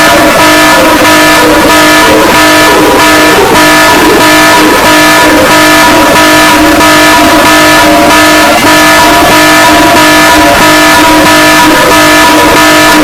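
Emergency-alert-style alarm tone, very loud and distorted: a harsh chord of several held pitches running steadily over a rhythmic pulsing noise.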